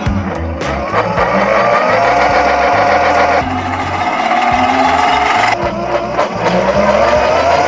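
Electric motor of a motorized bandsaw fence running. It whines up in pitch as it starts about a second in, runs steadily, drops back, then starts again with another rising whine near the end.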